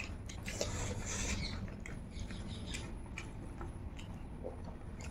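Faint eating sounds: fingers mixing and squishing rice on plates, and chewing, with scattered small clicks.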